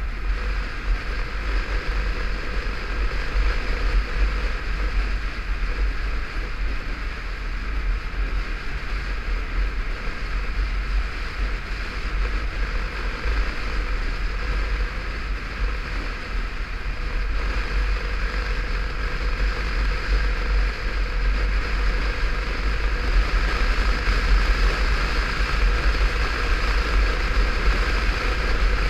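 Motorcycle ridden at road speed: steady wind rush and buffeting on the helmet-mounted camera, with the engine running underneath. It swells a little in the last several seconds.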